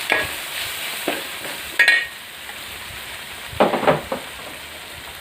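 Onion and spice masala frying in oil in a pan, sizzling steadily while a spoon stirs it, with several short scrapes against the pan. The scrapes are loudest about two seconds in and again near four seconds.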